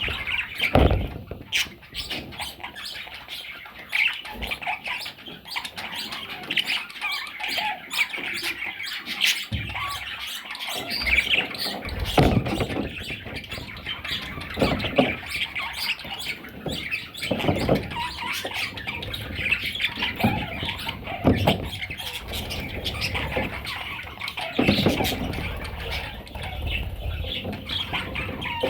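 A group of budgerigars chirping and chattering without pause, with occasional squawks. Dull thumps come every few seconds through it.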